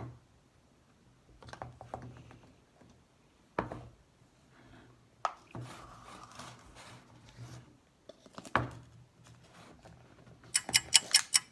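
Handling of a bowl and a plastic scooper while preparing slime powder: scattered knocks and scraping, then a fast, even tapping about six times a second near the end.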